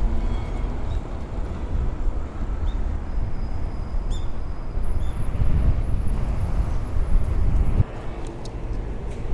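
Street traffic at a city intersection: a steady low rumble of passing vehicles, with a few faint high ticks and tones in the middle and a brief lull in the rumble near the end.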